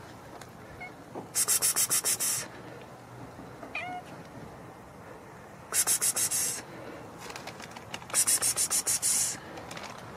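A person calling a cat with three quick bursts of "pss-pss-pss", each about a second long, and a tabby cat giving a soft, short meow about four seconds in.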